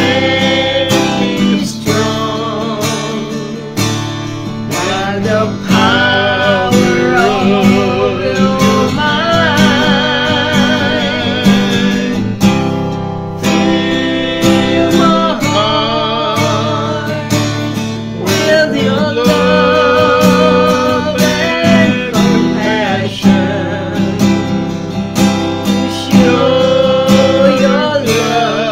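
A woman sings a worship song to her own strummed acoustic guitar, and a man's voice joins in. The held sung notes waver with a clear vibrato.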